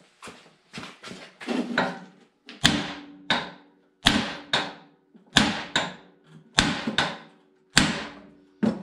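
Hammer blows on the side of a Belsaw M-14 sawmill husk, driving it off its shaft: a dozen or more sharp metal strikes, often two close together, with a brief ring after each. The blows get harder from about two and a half seconds in.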